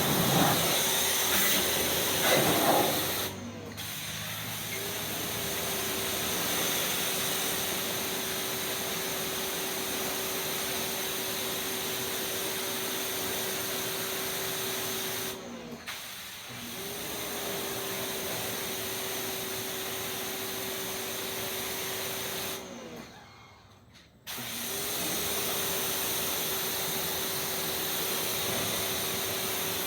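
Pressure washer spraying with a steady hiss and a steady hum underneath. The spray cuts out briefly three times and starts again, the hum sliding back up to pitch each time.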